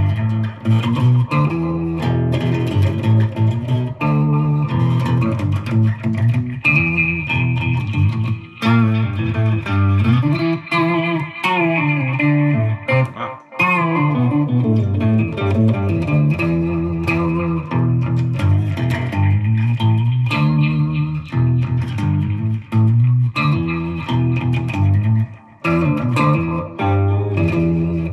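Electric guitar, a Fender Player Stratocaster, played through a Fender Mustang GTX100 modelling amp on a preset with a heavy low end. It plays a continuous run of sustained notes and chords, with a few bends about ten seconds in.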